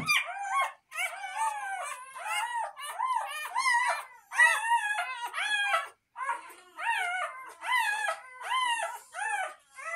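Newborn Cane Corso puppy crying in short, high squeals that rise and fall, about two a second with a brief pause around the middle. The crying comes just after a rubber docking band has been put on its tail.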